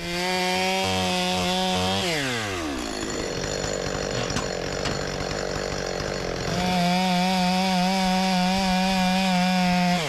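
Two-stroke gas chainsaw running at full throttle. About two seconds in its pitch drops as the chain bites into the white oak timber, and it cuts under load for about four seconds. It then revs back up to a steady high whine as it clears the cut.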